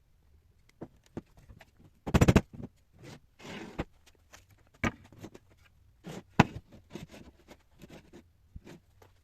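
Workshop handling sounds from work on wooden chairs: a short rattling burst about two seconds in, then a series of scattered knocks and clicks.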